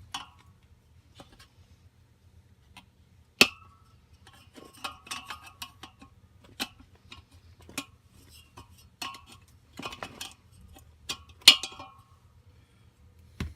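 Irregular metallic clinks and taps of hand tools working on a small blower wheel to free its damaged bushing, with two sharp louder strikes, one about three seconds in and one near the end.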